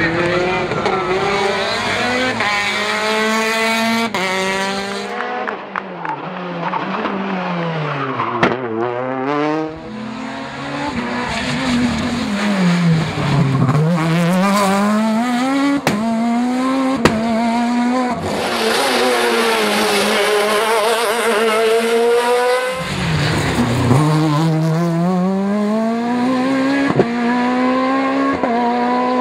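Rally car engine revving hard up and down through the gears, its pitch climbing and then dropping back again and again, with a few deep drops as it slows and a few sharp cracks.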